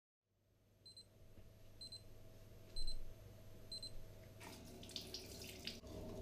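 Digital alarm clock beeping: four short high beeps about a second apart. Then, after a pause, about a second and a half of scratchy rushing noise.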